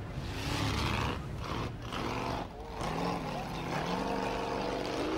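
A child's voice making vehicle engine noises: a hum that glides up and down in pitch, breaking off briefly a few times.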